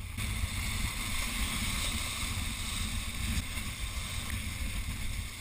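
Wind blowing across the microphone and waves washing against shoreline rocks, a steady rush.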